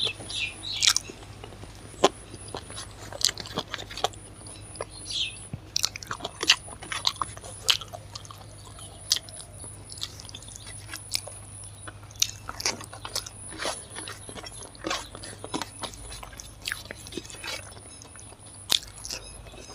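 Close-miked chewing of curry and rice eaten by hand, with frequent irregular sharp mouth clicks and smacks, over a steady low hum.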